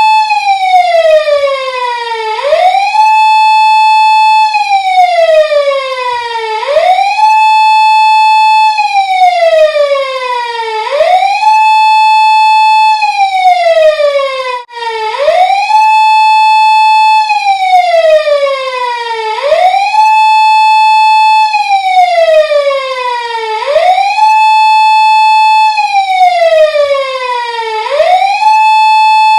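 Police car siren wailing in a steady repeating cycle: a quick rise, a held high tone for about a second and a half, then a slow fall, about once every four seconds. It breaks off for an instant near the middle, then carries on.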